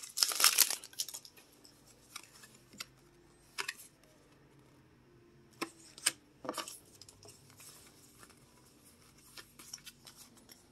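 Foil Pokémon trading-card booster pack torn open in the first second. The wrapper then crinkles and the cards are handled, with scattered short soft crackles and clicks.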